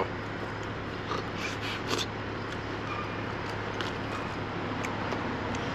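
A person chewing a bite of chicken gyro, with a few faint clicks and crinkles, over a steady low hum and background noise.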